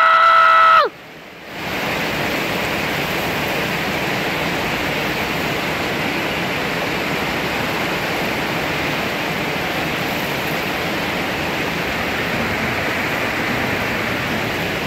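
Heavy thunderstorm rain pouring steadily as an even, dense hiss. A brief held tone at the very start cuts off under a second in, followed by a short dip before the rain noise settles in.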